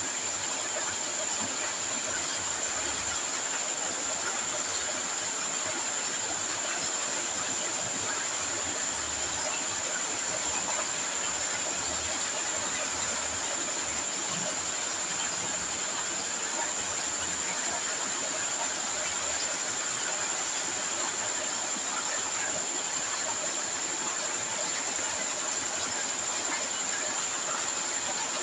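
Gold-ore slurry pouring steadily from drain pipes into cloth bags in a concrete tank, a continuous rushing wash with a constant high-pitched whine above it, as the drums are emptied.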